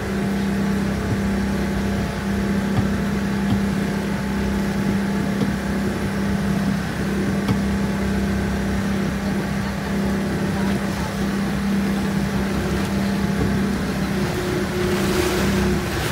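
Motorboat engine running steadily with a constant low drone, over wind and water noise. Near the end a louder rushing hiss of water and wind comes in.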